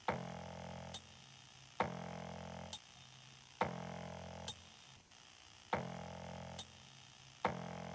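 Sound-design pulse repeating about every two seconds, five times. Each pulse is a sharp hit followed by a low humming tone lasting about a second, which ends in a small high click, like a slow, heavy clock tick.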